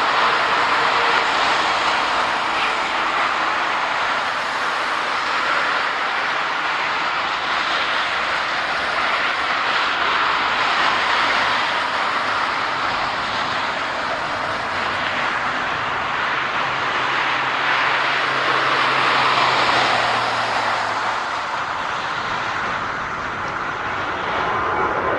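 Boeing 737-400's CFM56-3 turbofan engines running with a steady loud rush, with a faint low hum joining in for a few seconds in the second half.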